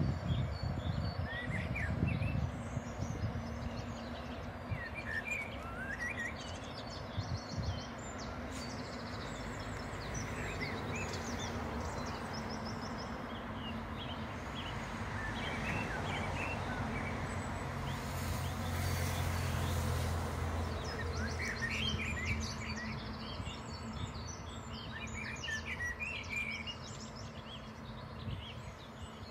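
Long freight train rolling along the far riverbank, heard as a distant, even rumble, with small birds chirping close by. A low steady hum swells and fades a little past the middle.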